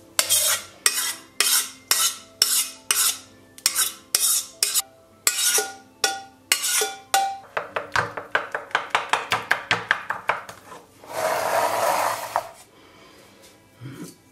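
Wooden spoon scraping and knocking against a stainless steel saucepan, stirring thick custard mixed with sugar syrup: sharp strokes about twice a second, then quicker strokes, then a steady scraping for a second or so near the end.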